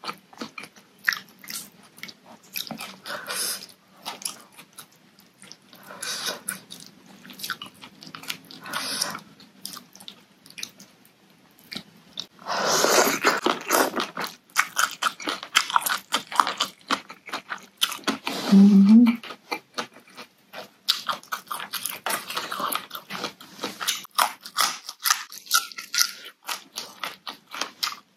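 Close-miked eating: crisp crunching bites and wet chewing of raw vegetables and squid, as a rapid run of short crackles. There is a long, dense crunch about 13 seconds in and a brief low hum near 19 seconds.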